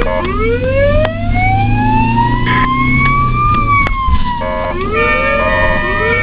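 Ambulance siren wailing: one long rise in pitch over about three and a half seconds that then falls away, followed by short rising sweeps and held steady tones, over the low hum of traffic.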